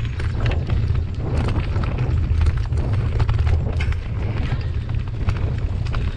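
Mountain bike ridden fast down a rough dirt forest trail: a heavy wind rumble on the bar-mounted camera's microphone, over a continuous clatter of small knocks and rattles from the bike and tyres hitting the ground.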